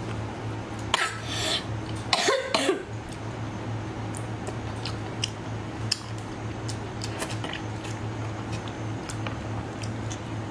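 Close-up eating sounds of a whole braised octopus being bitten and chewed: wet mouth clicks scattered throughout, with two short loud breathy bursts about one and two seconds in, over a steady low hum.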